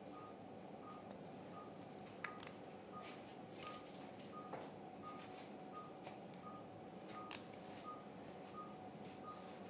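Faint, steady beeping of a patient monitor's pulse tone, about two short beeps a second at one pitch. A few sharp metal clicks of surgical instruments, a needle holder and forceps, sound as skin sutures are placed.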